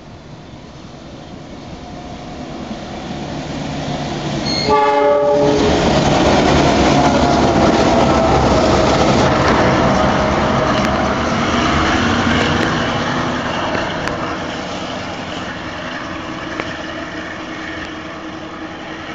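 Three diesel freight locomotives running light approach and pass by: their engines grow louder, a short blast on the horn sounds about five seconds in, then engine and wheel noise stays loud for several seconds before gradually fading.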